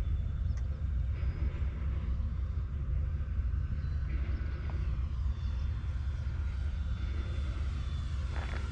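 Flightline F7F-3 Tigercat RC model warbird's twin electric motors whining faintly as it flies at a distance, the whine growing clearer and rising a little near the end, over a steady low rumble.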